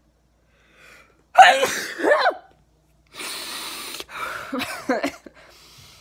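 A woman sneezing hard, part of a recurring sneezing attack: one loud sneeze about a second and a half in, then a long hissing breath and a second, shorter outburst.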